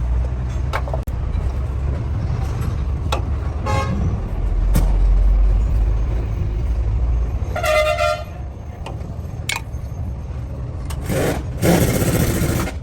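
Steady low rumble of road traffic with a few scattered clicks, and a vehicle horn sounding once for about half a second a little past the middle. Near the end comes a louder burst of rushing noise.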